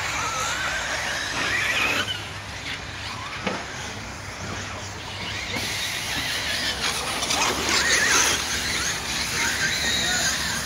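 Several radio-controlled truggies racing on a dirt track, their motors whining in pitch that rises and falls as they accelerate and back off, with a few sharp knocks.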